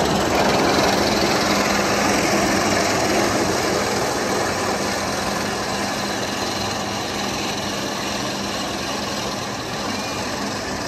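Steel roller coaster train rumbling along its track, loudest about a second in and then slowly fading, with a steady low hum under it.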